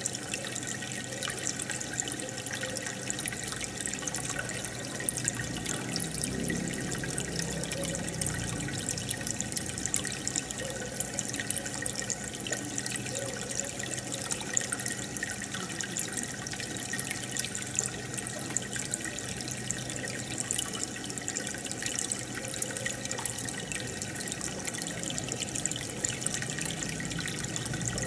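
Aquarium aeration bubbling: a steady trickle of water with many small bubble pops as air rises and breaks at the water surface.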